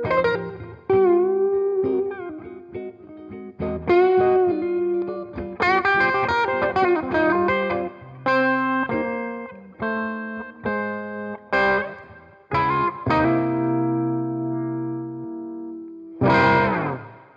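1980 Greco EG-500 Les Paul-style electric guitar with Maxon humbucking pickups, played through an amp with light overdrive. First come single notes with string bends and vibrato, then a run of chords and a long sustained chord. A final strummed chord about three-quarters of the way through rings out and is cut off at the end.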